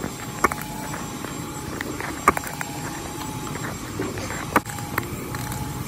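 Sharp metallic clicks and knocks from a long half-inch drive breaker bar and 19 mm socket as they are worked on tight, stuck strut mount bolts to break them free. There are a few of them, the loudest about two seconds in, over a steady low hum.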